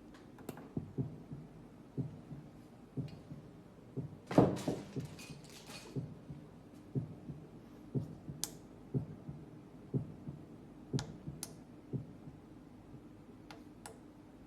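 Simulated heart sounds from a cardiopulmonary auscultation training model: low thumps about once a second, steady throughout. A few sharp clicks are scattered through it, and a louder rustling clatter comes about four seconds in.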